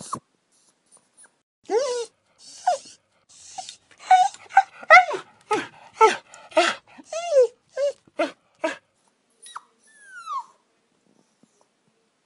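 Puppies whining and yelping: a string of short, high calls that bend up and down, coming fastest in the middle, with one longer falling whine near the end.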